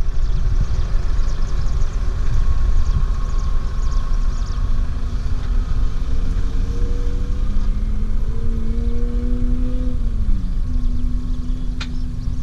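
Off-road vehicle engine running over a heavy low rumble; its pitch climbs slowly in the second half, then drops about ten seconds in as the throttle eases. A single sharp click near the end.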